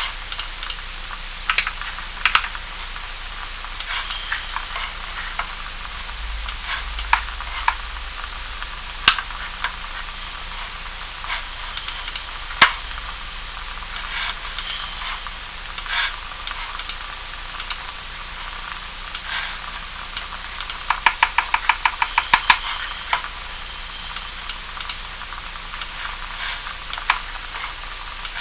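Typing on an EO87 mechanical keyboard with lubed Kailh Cream linear switches: irregular single keystroke clacks, with a quick run of about fifteen taps a little past two-thirds of the way through, over a steady hiss.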